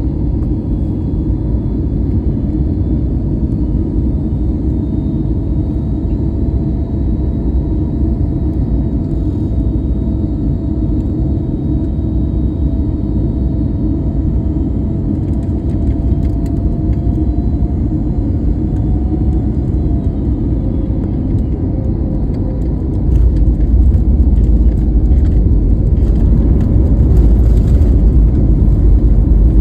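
Inside the cabin of a jet airliner during the landing roll: steady, loud rumble of the engines and wheels on the runway, with a faint whine that falls slightly about two-thirds through. About three-quarters through, the deep rumble suddenly gets louder and stays loud.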